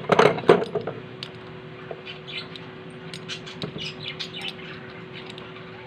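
A quick cluster of sharp metal knocks and clinks in the first second, from tools working the clutch of a sewing-machine motor to get its bearing out. After that, small birds chirp here and there over a steady hum.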